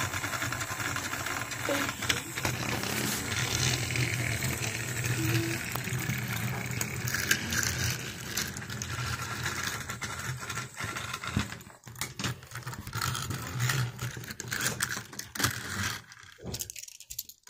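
Small plastic toy trains rattling and clicking along plastic toy railway track as they are pushed by hand, with knocks from pieces being handled in the second half.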